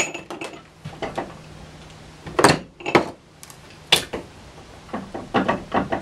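Metal tools and parts being handled on a workbench: a string of separate clinks, knocks and clatters, the loudest about two and a half and four seconds in.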